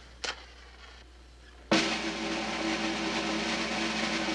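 A brief faint scrape or click, then about 1.7 seconds in a loud snare drum roll starts suddenly and keeps going: the military drum roll of a firing-squad execution.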